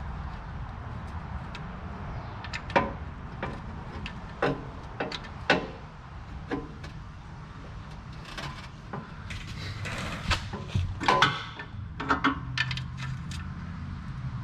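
Metal clicks and clinks of a 15 mm wrench on a car's oil drain plug as it is tightened: scattered single clicks, then quicker runs of clicking and rattling in the second half, over a steady low hum.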